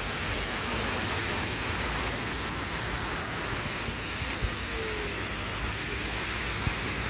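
Steady rush of wind and rain on the microphone, with road traffic underneath. Two small knocks come in the second half.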